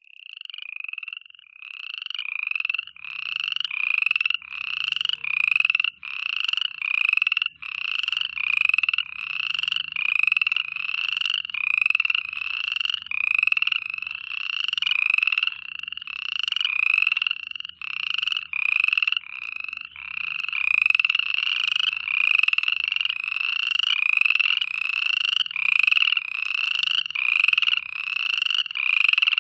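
Frogs calling in a steady, unbroken run of repeated croaking calls, about three every two seconds, each swelling in loudness and then cutting off sharply.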